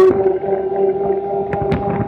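Honda Pioneer 1000 side-by-side driving over snow: a steady whine from its engine and drivetrain, with irregular clicks and rattles.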